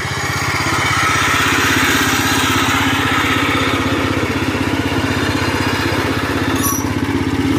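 Sears Compact 7 lawn tractor's small engine running steadily with an even pulsing beat as the tractor drives along an off-road trail, getting a little louder about a second in.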